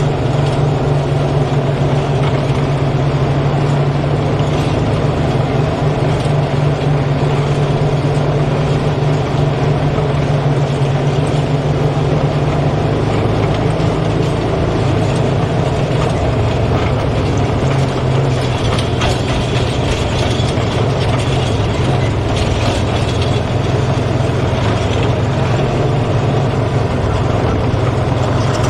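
Peterbilt truck's diesel engine running steadily as the truck is driven, with mechanical clatter. The engine's pitch drops a little about 13 seconds in.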